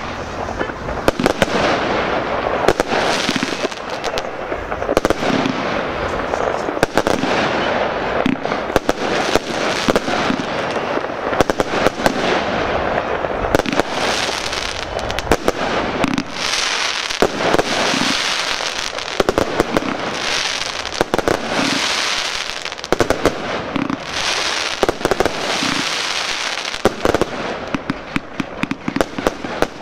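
Aerial fireworks bursting in rapid succession, many sharp bangs and dense crackling stars one after another. From about halfway through there are stretches of bright hissing crackle between the reports.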